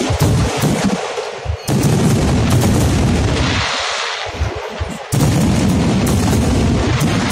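Aerial fireworks display: rapid, overlapping booms and bangs of shells bursting, with two short lulls, about a second in and around four seconds in, the second filled with a hissing crackle.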